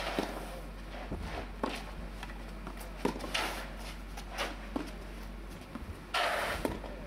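Tennis ball struck back and forth with rackets in a rally on a clay court: sharp pops about every second and a half, then a few lighter knocks. Near the end comes a louder half-second burst of noise.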